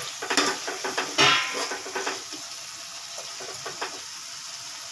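Metal spoon stirring and scraping against a metal pot of chicken in tomato gravy, with a steady sizzle from the pot. The scraping is busiest in the first couple of seconds, with one louder scrape a little over a second in, and then dies down to mostly the sizzle.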